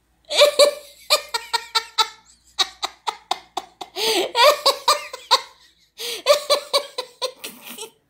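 A person laughing in repeated bursts, with a short pause before the laughter starts again.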